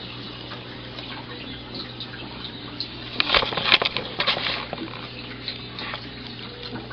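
Rustling and crackling handling noise for about a second and a half in the middle, over a steady low hum.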